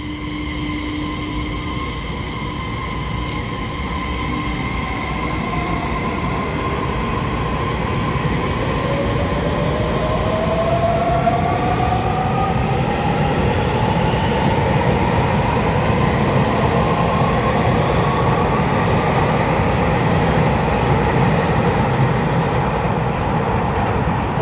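Twelve-car EMU3000 electric multiple unit pulling out of the station and gathering speed: wheels rumbling on the rails, growing slowly louder, with the traction motors' whine rising steadily in pitch as it accelerates.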